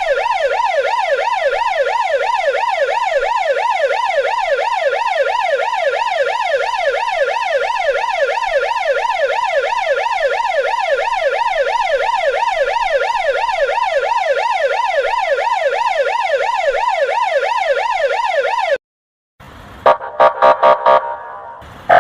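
Russian police car siren on a fast yelp, its pitch sweeping up and down about three times a second, cutting off suddenly near the end. After a brief gap comes a quick run of short quacking blasts, the 'kryakalka' special signal.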